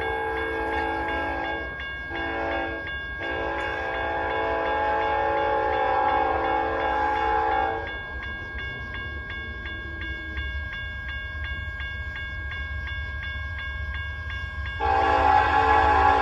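Nathan Airchime K5LLA five-chime horn on a BNSF ES44C4 locomotive sounding for a grade crossing. One blast is broken by two short gaps early on, a long blast follows until about halfway, and after a pause the horn returns louder near the end as the train closes in. A grade-crossing bell rings quickly and steadily under the horn and through the pause.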